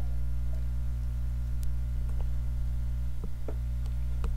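Steady low electrical hum, with a few faint clicks and a soft low thump about three seconds in.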